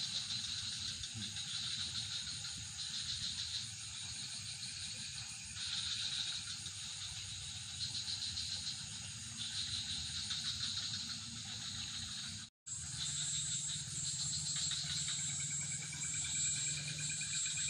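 Crickets and other night insects trilling steadily in several overlapping high-pitched layers, broken by a sudden brief gap about two-thirds of the way through.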